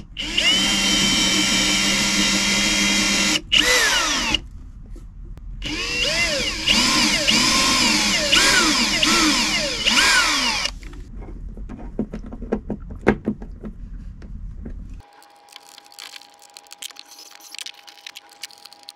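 Makita 18V cordless drill running in two spells into wood: first a steady whine of about three seconds that winds down, then about five seconds with the motor speed repeatedly rising and falling. Lighter clicks and knocks follow.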